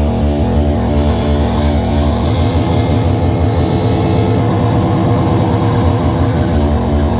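Harsh noise music: a loud, dense wall of distorted low rumble chopped into fast stuttering pulses, with a hissing high layer that swells in about a second in and fades by the middle.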